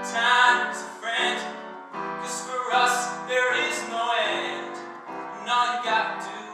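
Grand piano played live: chords struck about once a second, each ringing and fading before the next.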